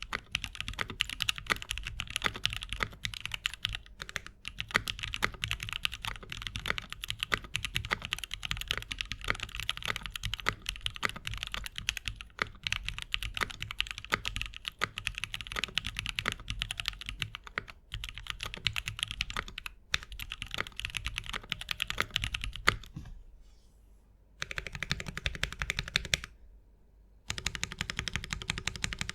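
Fast, continuous typing on a custom 65% mechanical keyboard with lubed and filmed C³ Equalz Banana Split linear switches in a polycarbonate plate, under GMK keycaps. The keystrokes run densely, drop away briefly after about 23 seconds, and come back in two shorter bursts with a near-silent gap between them.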